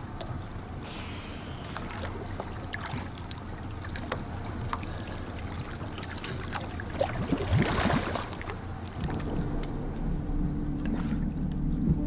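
Water splashing and sloshing around a diver at the surface beside a small boat, with a louder rush of water about seven to eight seconds in. A low steady drone grows stronger in the last few seconds.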